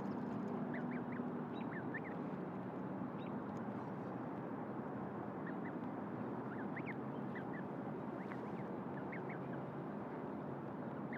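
Newly hatched duckling peeping: faint, short high chirps, often two or three in quick succession, scattered over a steady background hiss.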